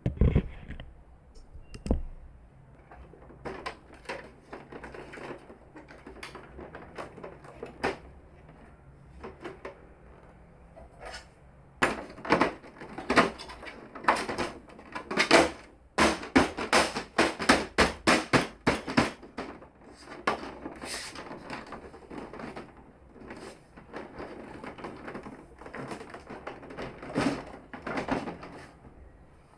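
Clicking and knocking of plastic parts on a Canon MF4450 printer being handled and fitted back together. There is a sharp knock at the start, scattered clicks after it, and a dense run of rapid clicks and clatter in the middle.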